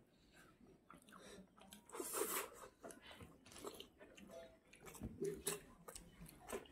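Chewing and biting of Maggi instant noodles eaten by hand, with fingers gathering noodles on a banana leaf; scattered soft clicks and rustles, the loudest a brief crunchy rustle about two seconds in.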